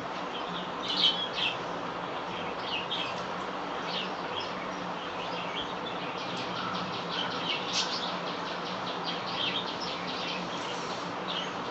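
Small birds chirping in short, scattered calls, with a quick trill-like run midway, over a steady background hiss and a low hum.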